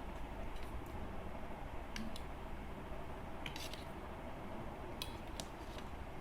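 Close-up eating sounds: scattered small clicks and crackles of chewing and of food being handled, over a steady low hiss.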